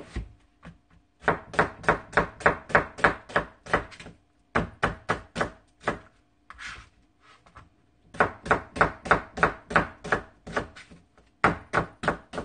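Chef's knife slicing an onion, the blade knocking on a plastic cutting board in quick runs of about four or five strokes a second, with two short pauses.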